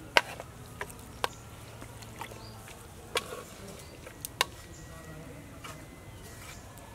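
A metal spoon and chopsticks knocking against a ceramic plate while tossing a wet shrimp salad: about six sharp clinks, the loudest just after the start and two in quick succession a little past the middle.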